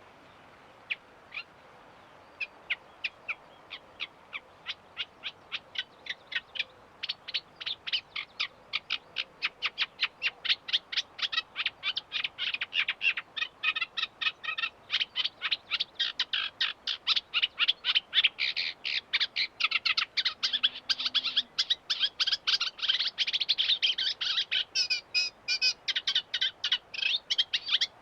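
Eurasian reed warbler singing: a long, rapid chattering song of short, sharp repeated notes. It starts with a few scattered notes and builds into a dense, louder stream over a faint steady hiss.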